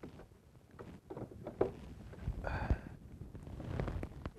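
Water splashing and sloshing as a peacock bass, held by the jaw at the side of a kayak, is worked in the water and beats its tail during release, with scattered knocks of handling against the hull. A short pitched sound comes about two and a half seconds in.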